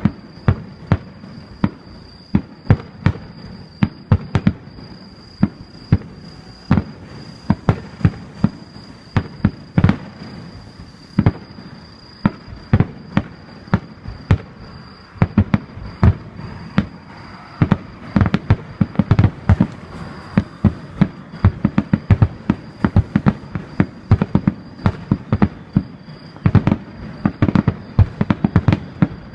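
Aerial fireworks bursting in quick succession, sharp bangs several a second with a rumbling echo after each, growing denser about halfway through.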